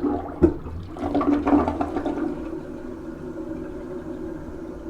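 Newly installed toilet being flushed: a sharp clunk about half a second in, then a rush of water loudest in the first two seconds, settling to a steady, quieter flow as the tank refills. A test flush to check the wax seal for leaks.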